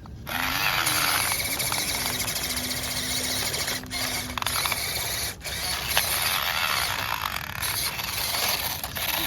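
A WPL C24 1/16 RC crawler truck driving, its small electric motor and gearbox whining over a dense hiss. The sound drops out briefly twice, around the middle.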